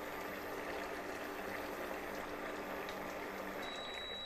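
Bottle gourd curry bubbling and simmering in a steel kadhai, a steady wet crackle over a low hum. About three and a half seconds in, the hum stops and a thin high-pitched tone begins.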